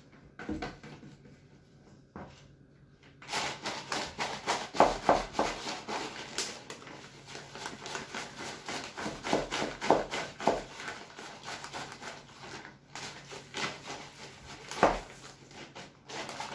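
Plastic bag of hemp-seed carp bait crinkling and rattling as it is kneaded and shaken to work hemp oil through the seeds; a couple of light clicks first, then from about three seconds in a continuous dense crackle of plastic and shifting seeds.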